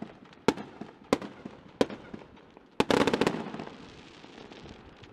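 Fireworks going off: three single sharp bangs about half a second to a second apart, then a loud bang a little before the middle followed by a rapid string of cracks and a rumbling echo that fades away.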